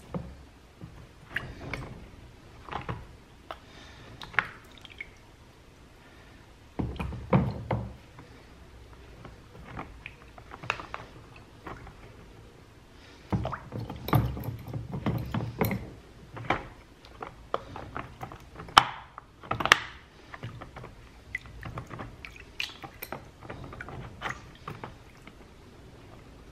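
Black plastic toy-car wheels being washed by hand in plastic tubs of water: scattered clicks and knocks of plastic on plastic, with two longer bouts of water sloshing, one about seven seconds in and one around the middle.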